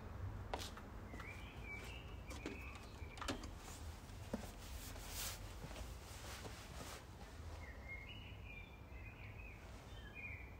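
Faint outdoor night ambience: a steady low rumble and hiss with scattered small clicks. Twice, a short run of high chirps, once about a second in and again near the end.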